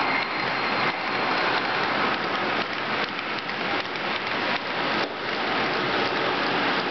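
Model railway freight train of loaded open wagons rolling past on the layout track: a steady rattling clatter of many small wheels over rail joints and points.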